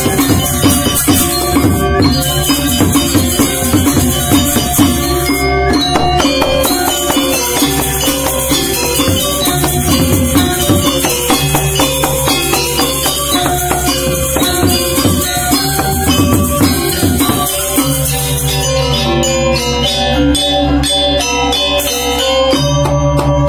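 Balinese gamelan gong ensemble playing: bronze metallophones and gongs ringing over kendang drums. A dense high clash of ceng-ceng cymbals runs over the ensemble and stops about three-quarters of the way through, leaving separate strokes.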